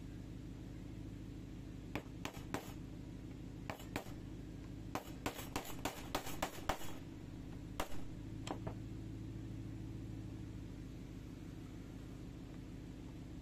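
Scattered sharp clicks and knocks of hard objects being handled, with a quick cluster of them about five to seven seconds in, over a steady low hum.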